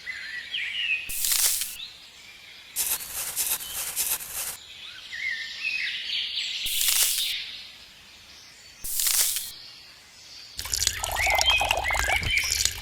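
Small birds chirping, broken by four or five short, loud bursts of hissing, scraping noise, with a louder, fuller stretch of noise near the end.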